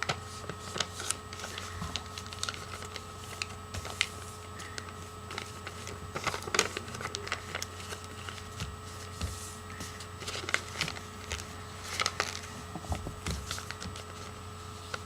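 A sheet of paper being handled, unfolded and creased by hand, giving irregular short crackles and taps over a steady faint hum.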